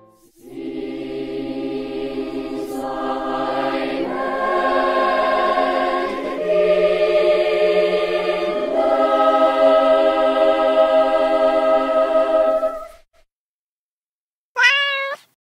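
Background music: sustained choir-like chords that build over about thirteen seconds and then stop abruptly. After a pause, a single brief wavering pitched sound comes near the end.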